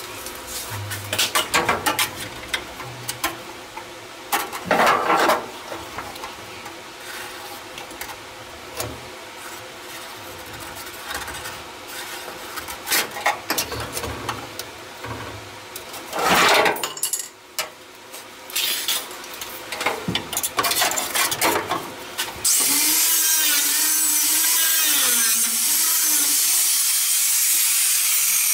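Knocks, clinks and scraping of tools on the sheet metal of a vehicle's rusted lower A pillar. About two-thirds of the way in, a loud steady hiss with a wavering whine starts and keeps going, from a power tool at work.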